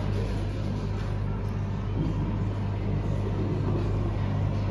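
A steady low mechanical hum under a background of noise, unchanging throughout.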